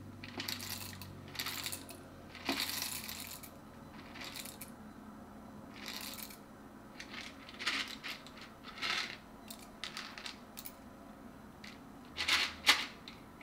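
Timemore S3 manual coffee grinder being hand-cranked, its burrs crunching whole coffee beans into a medium-fine grind in irregular crackling bursts. There are a couple of louder clicks near the end.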